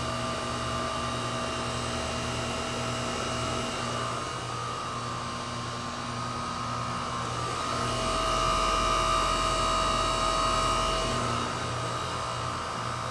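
2008 Goodman heat pump outdoor unit running in heat mode, a steady hum of compressor and fan with several fixed tones. It swells louder with a deeper rumble for about three seconds around the middle, then settles back to its steady running level.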